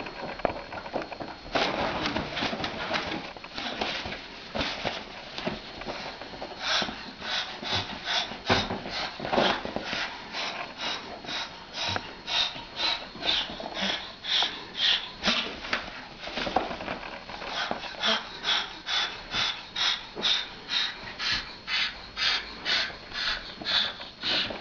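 Moluccan (salmon-crested) cockatoo hissing in short, breathy huffs. They are irregular at first, then settle after about six seconds into a steady rhythm of about two a second. It is a threat display aimed at a cat.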